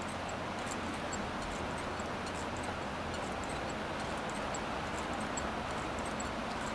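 Steady rush of moving air with faint, quick ticking from the wooden-and-brass crank and oar linkage of a wind-driven rowing-boat whirligig as its propeller turns and the oarsmen row.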